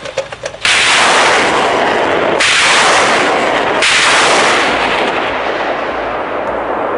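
BM-27 Uragan multiple rocket launcher firing a volley of 220 mm rockets: a sudden loud rocket blast about half a second in, fresh blasts about two and a half and four seconds in, then a lower rushing roar as the rockets fly away.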